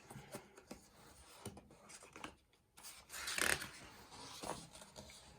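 Faint paper rustling and handling of a picture book as its page is turned, with the loudest rustle about three seconds in.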